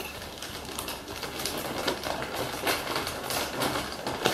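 Crinkling and rustling of a plastic snack bag being handled, with irregular small clicks and taps of packaging on the counter.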